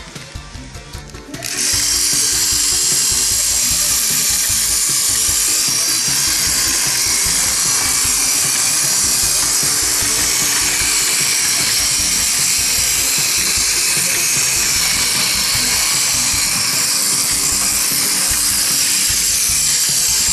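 A Plarail toy locomotive's small electric motor and plastic gearbox running steadily with a high whir, starting about a second and a half in, as the reassembled engine is test-run.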